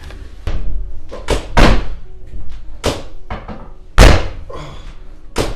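A series of sharp thuds and knocks during a chiropractic ankle adjustment, irregularly spaced, the loudest about four seconds in.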